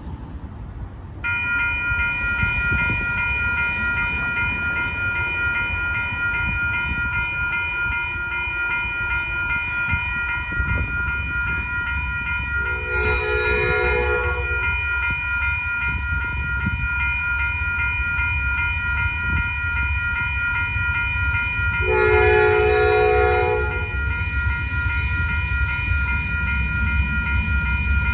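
WCH type-1.5 electronic crossing bell starts about a second in and rings steadily. The horn of Amtrak GE P42DC locomotive 78 sounds twice, once around the middle and once near the end, each blast about two seconds long, while the low rumble of the approaching train grows.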